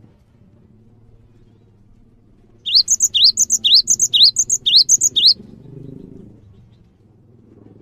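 Cinereous tit (gelatik batu) singing a quick run of repeated phrases, each a rising whistle followed by higher, sharp notes, about seven in a row over roughly two and a half seconds, starting about a third of the way in.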